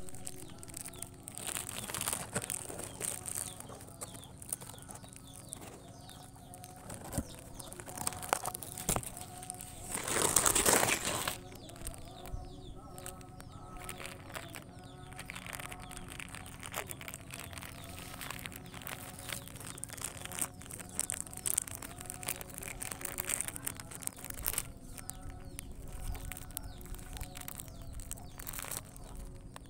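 A puppy chewing and pawing at a plastic snack wrapper: irregular crinkling and crackling of the plastic, with one longer, louder rustle about ten seconds in.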